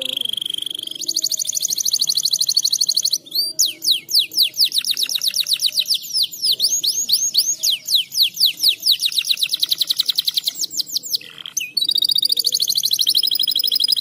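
Male canary in breeding condition singing a long song: fast trills, then series of sweeping notes at about four a second, then fast trills again, with brief breaks about three seconds in and near eleven seconds.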